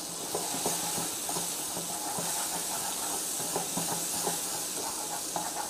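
Butter sizzling in melted caramelized sugar in a pan as it is stirred: a steady hiss with scattered small clicks.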